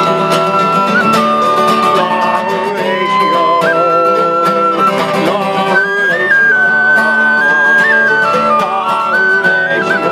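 Tin whistle playing a folk tune of held notes with quick ornamental flicks, over strummed acoustic guitars.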